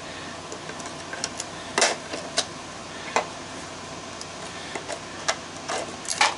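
Irregular clicks and light knocks of small parts being handled in a sheet-metal electrical box taken from a furnace, loudest a little under two seconds in and again near the end, over a steady low hum.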